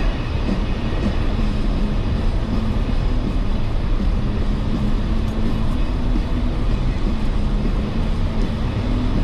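Jeep Wrangler's engine and drivetrain running steadily during off-road driving, heard from inside the cab, with a steady low hum that breaks off now and then.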